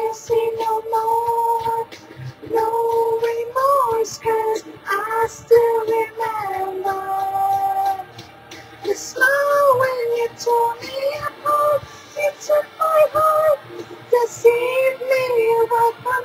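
A woman singing close to the microphone, holding long notes and sliding between pitches, over a quiet backing track.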